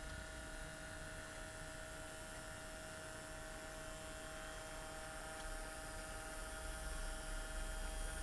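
H0-scale model train running: a steady electric hum and buzz from the model locomotive's small motor and the wheels rolling on the rails, a little louder near the end.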